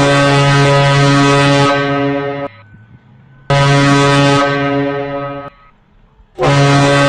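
Morse code for the letter Y sounded on a deep horn: three long, loud blasts with about a second of silence between them, the middle one shorter than the other two.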